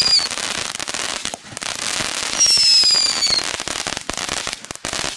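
Consumer ground fountain firework spraying sparks: a steady hiss thick with crackles and pops. A whistle falling in pitch ends just after the start, and a second one sounds about two and a half seconds in. The spray thins out near the end.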